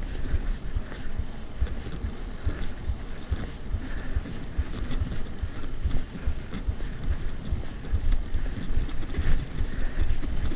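Wind buffeting a GoPro action camera's microphone over the rumble and rattle of a mountain bike rolling along a dirt trail, with irregular small knocks from the bumps.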